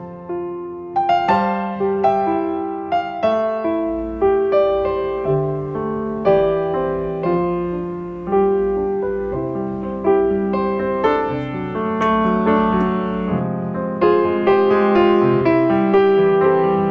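Background piano music: a slow melody of struck notes and chords, each ringing and fading.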